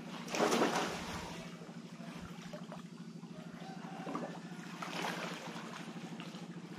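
Sea water splashing and sloshing as several swimmers stroke through it, loudest about half a second in and again around five seconds. Under it runs a steady low drone with a fast even pulse, like a small engine.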